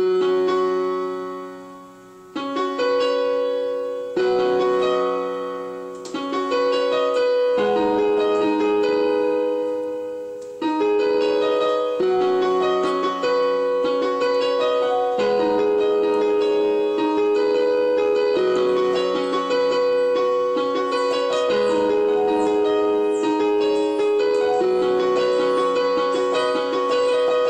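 Electronic keyboard played with a piano sound: slow chords struck every couple of seconds and left to ring and fade, then from about eleven seconds in a steadier flow of chords with a melody on top.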